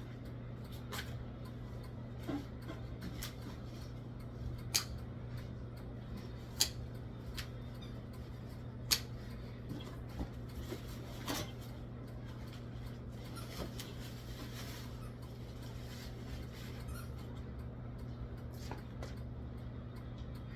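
Scattered sharp metallic clinks and clicks, about a dozen, from hammock parts being handled and fitted together, over a steady low hum.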